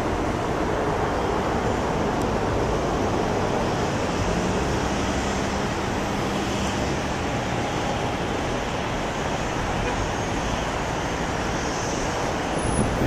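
Jet engines of an Airbus A330-300 (Pratt & Whitney PW4000) running at approach power as the airliner descends to the runway: a steady, even rushing noise.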